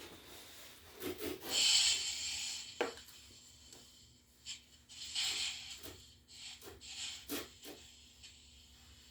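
TIG welding arc on a steel tire iron running steadily with a faint hum as a bead is laid and filler wire is fed by hand. Two louder hissing rushes come about a second and a half in and again around five seconds in, with small scattered clicks.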